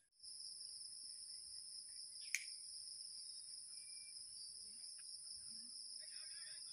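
Steady high-pitched insect chorus, with one sharp click a little over two seconds in and faint bird chirps near the end.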